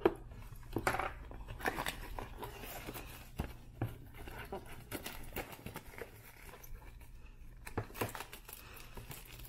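A sealed trading-card box being opened by hand: plastic wrap crinkling and tearing, and cardboard rustling, with irregular small clicks and scrapes.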